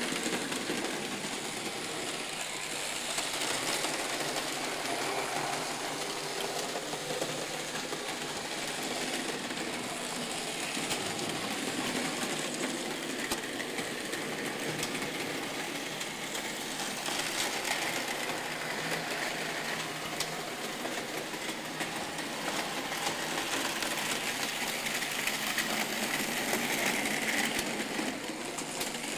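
Märklin HO-scale model trains running on the layout: the small electric motors make a steady whirr, and the wheels keep clicking over the track.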